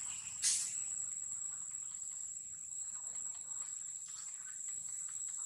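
Insects droning in a steady high-pitched chorus, with one short sharp crackle about half a second in and faint scattered ticks.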